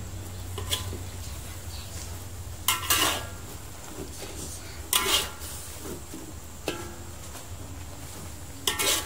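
Metal spatula scraping and clinking against a metal wok while stirring spinach in simmering gravy, about five strokes one to two seconds apart, each with a brief metallic ring, over a steady low hum.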